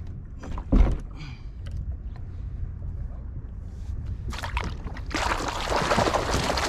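Kayak on open water: a single loud knock against the kayak about a second in as the tuna is stowed behind the seat, over a low wind rumble on the microphone, then a loud rush of splashing water beside the kayak from about five seconds in.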